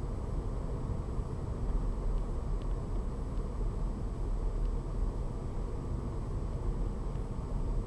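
Steady low rumble of road and engine noise inside a moving car, with a few faint ticks.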